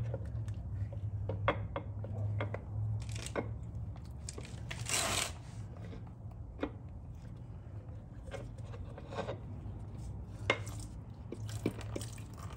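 Scattered light clicks and knocks of hand tools and metal engine parts being handled, with a brief scrape about five seconds in, over a low steady hum.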